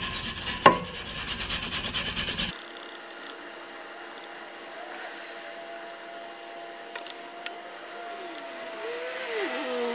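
Hand wire brush scrubbing rust and corrosion off a cast-iron rear wheel hub in quick back-and-forth strokes, with one sharp knock under a second in. The scraping is louder for the first two and a half seconds, then fainter.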